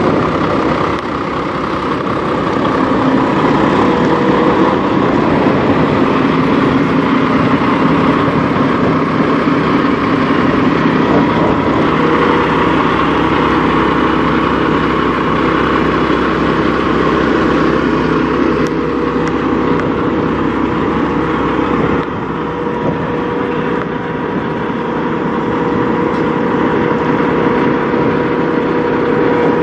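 Semi truck's diesel engine idling steadily close by, with a constant whine running over the engine noise.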